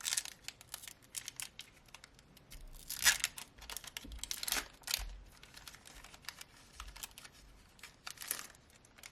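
A foil booster-pack wrapper crinkling and tearing while trading cards are handled: a run of small clicks and rustles, with louder crackling rips about three, four and a half and eight seconds in.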